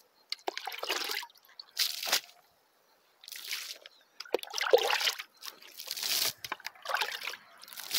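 Homemade liquid fertilizer scooped from a plastic bucket with a plastic scoop and flung onto tilled soil: a series of sloshes and splashes, about one a second.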